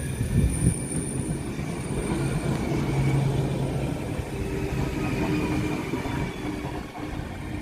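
Passenger train running past on the rails with a steady rumble, with a faint, steady high-pitched wheel squeal over it.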